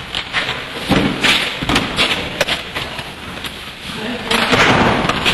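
Several knocks and thumps as wooden storeroom doors are pulled open and handled, over a constant noisy hiss that grows louder near the end.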